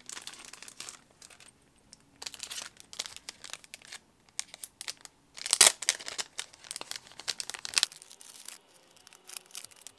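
Clear plastic retail sleeves crinkling in the hands as small brass tags are pulled out of them, in irregular bursts of crackle with the loudest rustle about five and a half seconds in.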